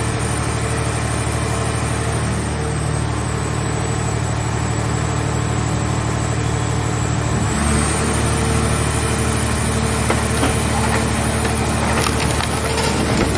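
Hydraulic car-body baler's power unit running with a steady hum; its note changes and grows louder about halfway through as the press takes load. Sharp cracking and crunching near the end as the scrap car shell is compressed.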